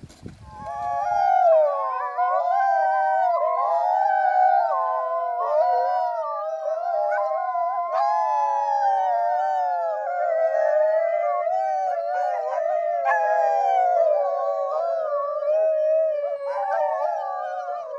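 Several Canadian Inuit sled dogs howling together, their overlapping howls wavering up and down in pitch without a break.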